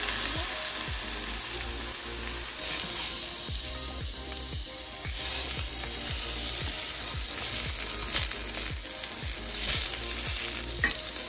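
Eggplant slices frying in hot oil in a stainless steel frying pan, sizzling steadily.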